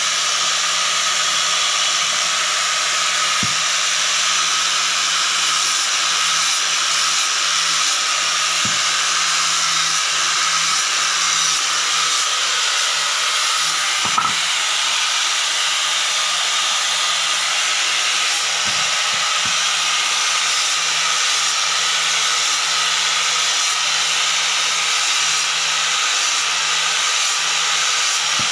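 Total electric angle grinder with an abrasive disc running steadily with a high whir, sanding the edge of a hardwood chopping board.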